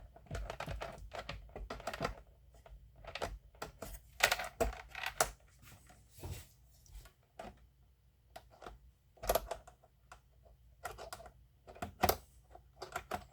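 Irregular clicks and small knocks from hands handling an RC helicopter's canopy and its quick-release knob, in uneven clusters with short pauses between.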